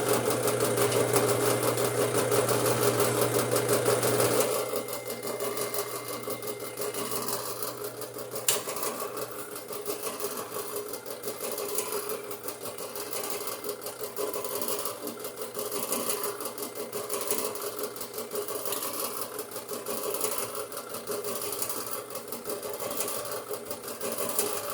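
Drill press running with a step bit cutting into 5-inch steel channel iron, a steady machine hum with a fast even chatter. It is louder for about the first four seconds, then settles to a steadier cut.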